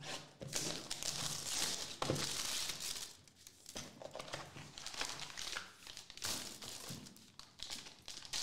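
Plastic shrink-wrap being peeled and crinkled off a trading-card box, an irregular rustling and crackling. Near the end, the box's paper pack sleeve is pulled open.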